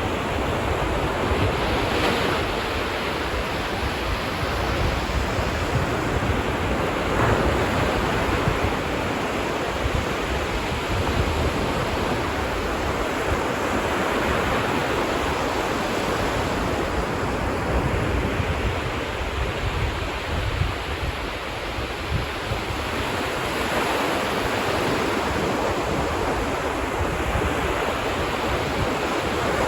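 Ocean waves washing onto a beach, a continuous surf that swells and eases every few seconds, with wind buffeting the microphone.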